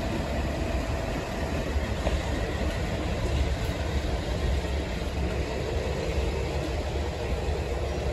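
Street traffic at a city intersection, led by a TTC transit bus's engine running as the bus turns past close by: a steady low rumble with no separate bangs or clanks.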